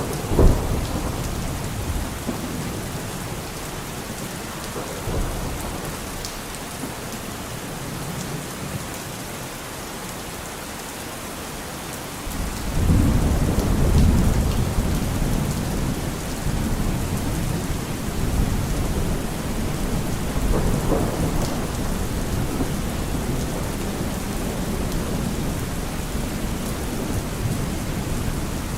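Steady rain falling, with thunder: a sharp crack about half a second in, then a long low rumble that rolls in about twelve seconds in and goes on under the rain.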